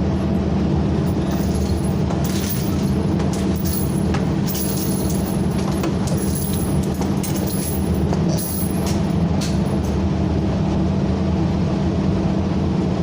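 A steady low mechanical hum with faint, light clicks scattered through it; no gunshots.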